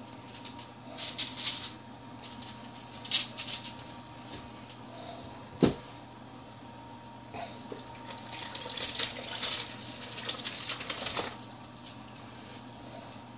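Stainless-steel cooking pot being handled: light metal clinks and clatter, one sharp knock about halfway, then a few seconds of denser clatter and splashing as chicken broth is strained off the bones.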